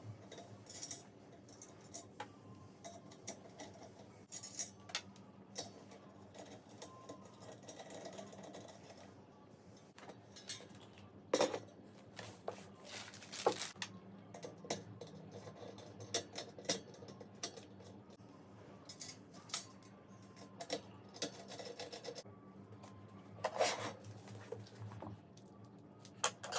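Metal parts and tools clinking, tapping and knocking on a workbench as aluminium extrusions and screw hardware are handled. The knocks are irregular, with a few louder ones about eleven, thirteen and twenty-three seconds in.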